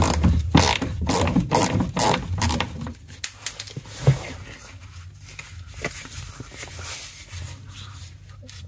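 Ratchet with a 10 mm socket turning a bolt under the front bumper, a rapid run of clicking strokes for about three seconds. Then a single knock about four seconds in and faint handling sounds.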